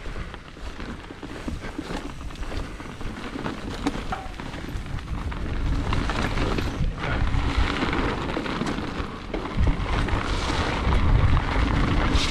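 Mountain-bike riding noise on a wet, sloppy dirt trail: a deep rumble of wind buffeting the microphone mixed with the hiss and rattle of knobby tyres and the bike. It grows louder about halfway through as speed builds into the rhythm section of jumps.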